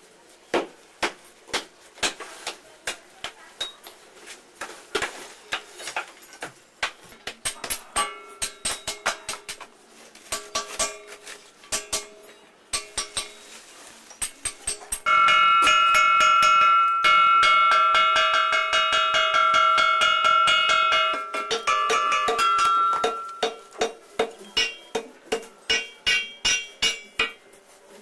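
Rapid hammer taps knocking the baked clay mould off a freshly cast metal figure, the struck metal ringing out with a bell-like tone. For about eight seconds in the middle a loud, steady ringing with several held pitches sounds without break.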